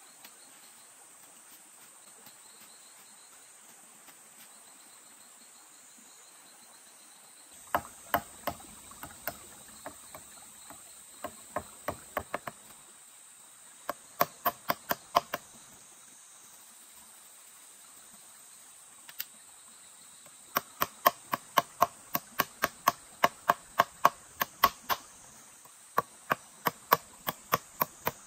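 Sharp, repeated chopping strokes, about three a second, in several runs separated by short pauses, starting about eight seconds in. Insects drone steadily at a high pitch throughout.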